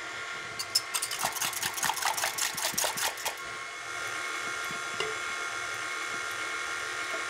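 A small wire whisk clicking rapidly against a glass measuring cup as an egg is beaten into milk, then from about four seconds in a stand mixer's motor running with a steady whine.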